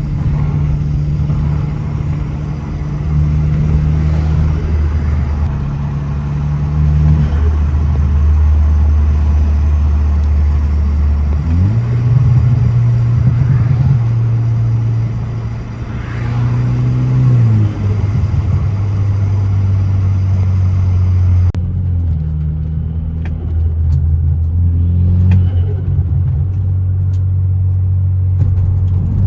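BMW F30 328i's turbocharged four-cylinder engine running under way, with road noise, at a steady pace. The engine note steps up in pitch about twelve seconds in and drops back lower a few seconds later.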